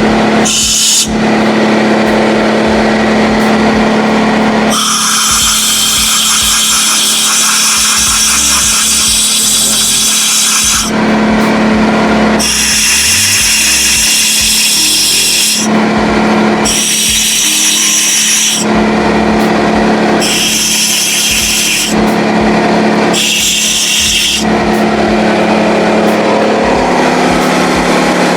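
Compressed air from a blow gun blasting into the engine block's head-bolt holes, a loud hiss that starts and stops many times as each hole is cleared of leftover coolant. An air compressor's motor hums steadily underneath.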